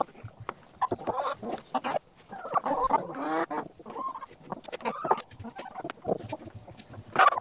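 A flock of hens clucking while feeding from a hanging bucket, with many quick sharp taps of beaks pecking at the feed and louder drawn-out calls a few times.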